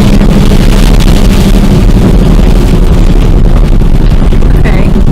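Loud, steady wind buffeting the microphone over the low rumble of a moving chase vehicle in a severe storm.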